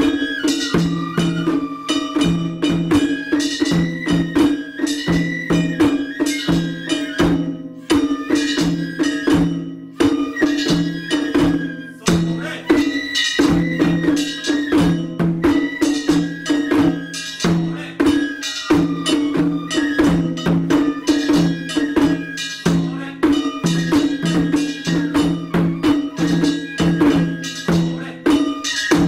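Japanese matsuri-bayashi festival music: drums keep a steady, busy rhythm of strokes under a high wandering flute melody, with sharp struck accents throughout.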